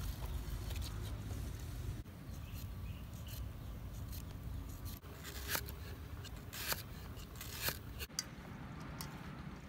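Knife work on vegetables: small scraping and cutting clicks, then a few sharper knife strokes about a second apart, from a cleaver chopping on a wooden cutting board. A low steady background rumble runs underneath.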